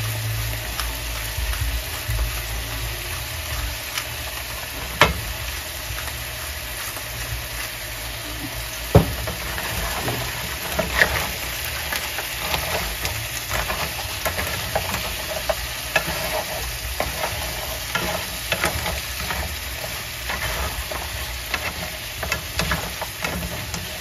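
Blue crab pieces frying in a pot with a steady sizzle. Stirring adds occasional sharp knocks against the pot, the two loudest about five and nine seconds in.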